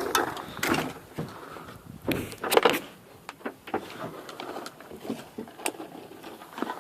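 Irregular knocks, clunks and scraping from rummaging through a junked van's interior, the loudest stretches near the start and about two to three seconds in.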